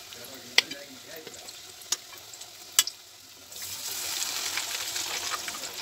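Metal tongs click three times against the bowl, then about three and a half seconds in, a batter-coated piece of chicken goes into hot oil and a steady, crackling sizzle comes up.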